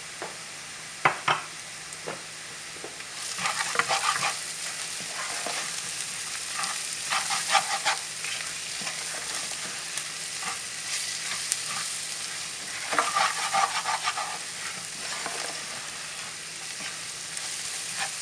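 Chopped onions, garlic, ginger and spices frying in a pan while a spoon stirs and scrapes through them in bursts. There are two sharp taps about a second in, and the frying hiss grows louder from about three seconds in.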